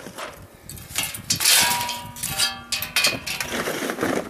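Handfuls of wood chunks and biochar dropped into the wood gasifier's metal reactor, clattering irregularly. Pieces strike the steel and ring briefly in the middle.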